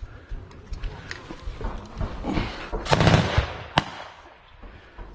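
Scattered gunfire: sharp cracks at irregular intervals, with a heavier, longer blast about three seconds in and another loud crack just after it.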